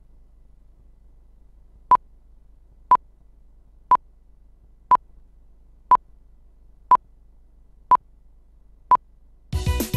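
Countdown leader beeps: eight short, identical high beeps, one a second. Loud music starts suddenly just before the end.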